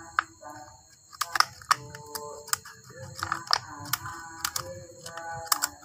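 Scissors snipping through a thin plastic drink cup: a run of sharp, irregular clicks, with short squeaky tones between them. A steady high-pitched hum runs underneath.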